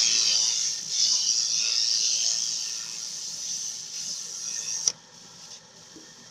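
Abrasive sanding hiss of a small plant-ball being sanded on a small improvised sanding machine, fading over a few seconds and ending with a sharp click about five seconds in.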